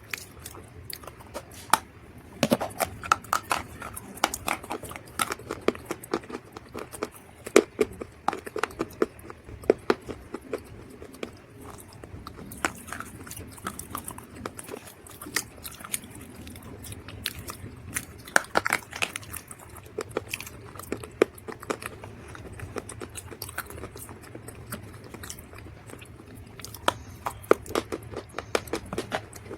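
Dried mud or clay being bitten and chewed, with many sharp, crisp crunches that come in bunches, loudest around two seconds in, near the middle and near the end.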